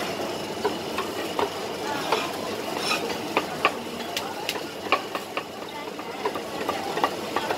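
Light clinks and taps of utensils against plates and containers, many in quick irregular succession, over a steady background din.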